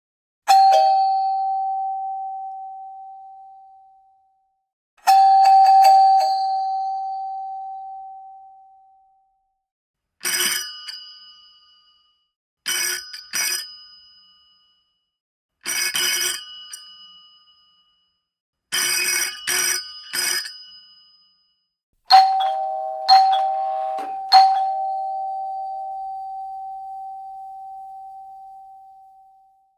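A run of separate doorbell sounds, one after another. First, two single chime strikes each ring out slowly for about four seconds. Then come short, bright rings: one, a pair, one, and then three in quick succession. Last, three chime strikes with a long ring-out.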